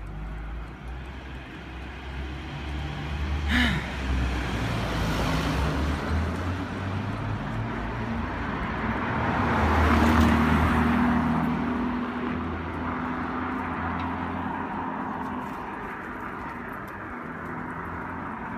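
City street traffic: motor vehicles passing, with one car swelling loudly past about ten seconds in and then fading away.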